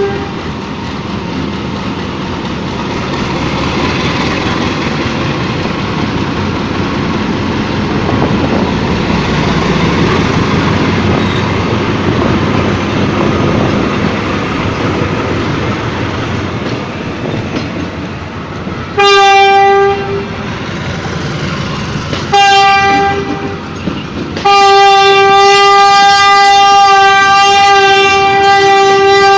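Train rumbling and clattering along the rails, then its horn sounds: a short blast about 19 seconds in, a second short blast about three seconds later, and a long steady blast held from about 24 seconds in.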